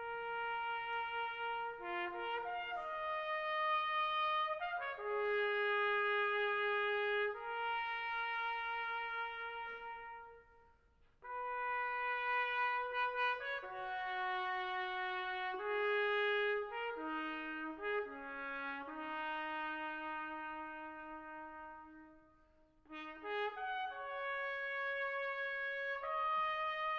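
Intro music: a slow solo melody on a single instrument, one held note at a time, in three phrases with short breaks about ten and twenty-two seconds in.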